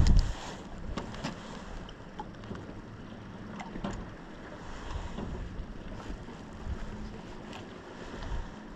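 Wind and lapping water around a small fishing boat, with a faint steady low hum. A low thump comes right at the start and a few faint light clicks follow.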